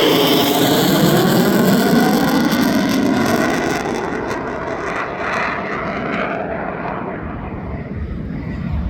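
Boeing F/A-18F Super Hornet's twin jet engines passing, loudest at the start and fading over several seconds as it flies away, with a sweeping, phasing quality to the roar.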